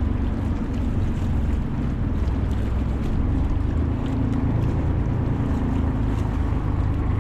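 A bangka's engine running steadily while the boat is under way, with wind rushing on the microphone and water noise.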